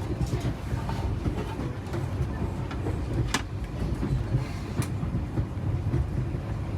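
Passenger train running along the track, a steady low rumble, with two sharp clicks about a second and a half apart midway through.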